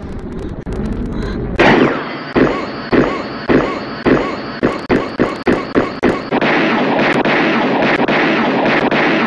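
Film fight sound effects: a run of heavy punch impacts, about two a second, then a dense steady noise with more hits in it.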